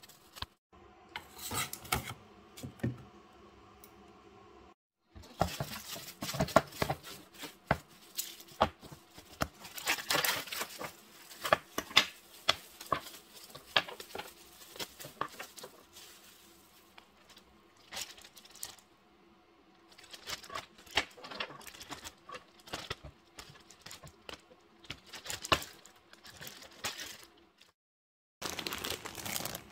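Plastic cling wrap crinkling as it is pressed over an ice cube tray. Then frozen crushed-garlic cubes are knocked out of a plastic ice cube tray, clicking and clattering into a plastic snap-lock bag as irregular knocks and rustles.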